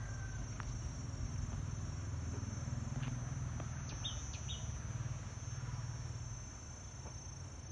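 Steady high-pitched insect trilling, with a few short high chirps about four seconds in, over a low steady rumble.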